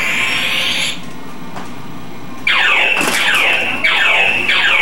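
Battery-powered electronic toy sounding off: a high buzzing tone for about a second, then, after a short lull, a run of quick electronic zaps, each falling in pitch, several a second.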